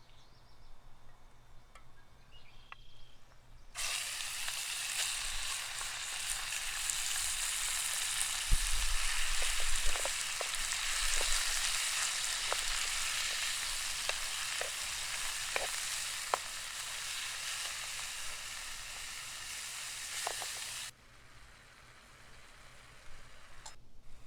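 Food sizzling in hot oil in a pan, a steady frying hiss with scattered pops and spatters, starting about four seconds in and cutting off abruptly near the end. A few low knocks come from the pan around the middle.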